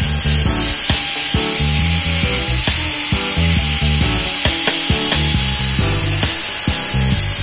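Angle grinder with a sanding disc running against a steel pipe, a steady high motor whine with a rough rubbing sound as the disc is worked along the metal. Background music plays underneath.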